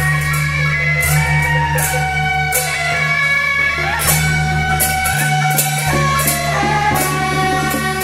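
Temple procession band music: a reedy horn melody over a steady low bass, with hand cymbals crashing about every half second to a second.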